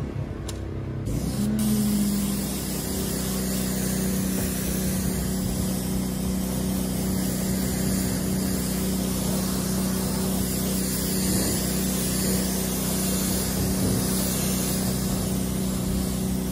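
Pressure washer spraying water: a steady hiss of the jet over the machine's hum. The spray stops briefly at the start and comes back about a second and a half in, the hum rising in pitch as it picks up, then runs on steadily.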